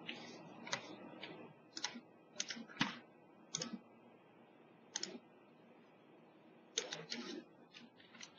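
Faint, irregular clicks and taps of a computer mouse and keyboard being operated, some in quick pairs, over a low steady hiss.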